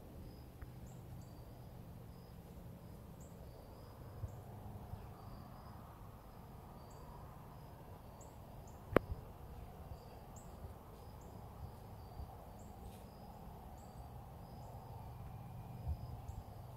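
Quiet woodland ambience with faint, high-pitched chirping repeating irregularly throughout, over a low rumble. A single sharp click about nine seconds in is the loudest sound.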